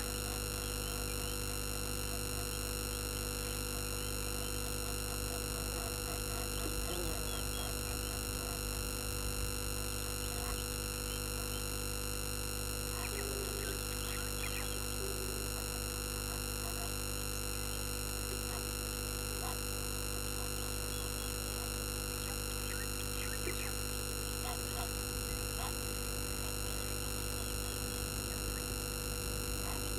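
Steady electrical hum and whine with many held tones from the live camera's audio line, with a few faint short animal calls scattered through it.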